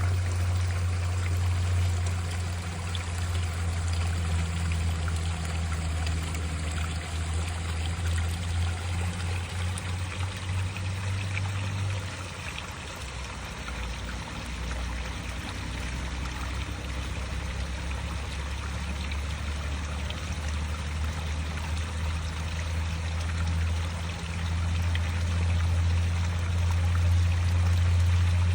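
Water pouring steadily from a spout and splashing below, with a deep low rumble under it that drops away around the middle and comes back near the end.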